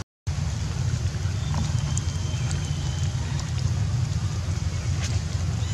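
Steady outdoor background noise: a constant low rumble under an even hiss. It drops out for a split second at the start, then carries on unchanged, with a few faint clicks.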